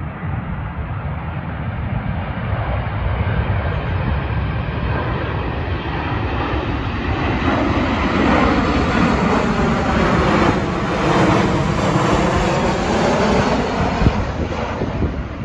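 A twin-engine jet airliner's engines on landing approach, growing louder as it passes low overhead and loudest about two thirds of the way in. A whooshing sweep falls and rises in its tone as it goes over. Gusty wind rumbles on the microphone throughout.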